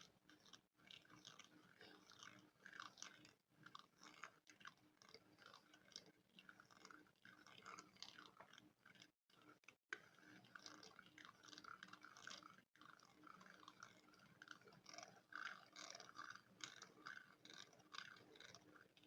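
Spoon scratching directly on a microphone: a faint, close, continuous, irregular scratching texture, broken by a few brief gaps.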